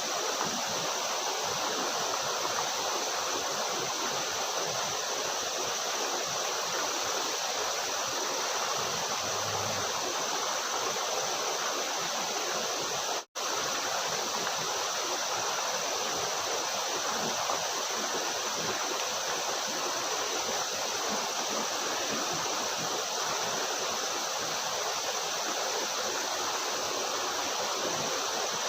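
Waterfall rushing steadily, an even wash of falling water that cuts out for a split second about halfway through.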